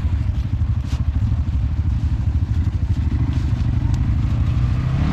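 Quad (ATV) engines running at low revs close by, a steady pulsing rumble with a few faint clicks over it.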